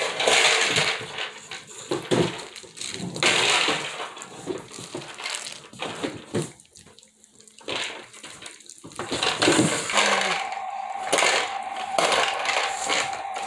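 Bare hands rubbing a wet seasoning paste into a raw brisket lying on plastic wrap: irregular squelching, slapping and rustling strokes as the coating is lathered over the meat.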